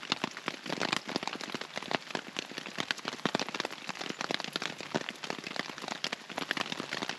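Rain falling on a tarp shelter overhead: many separate drops landing close together at an irregular rate.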